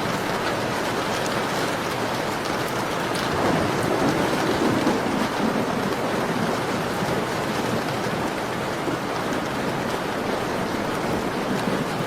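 Steady rain falling on a window. A low rumble swells and fades between about three and six seconds in.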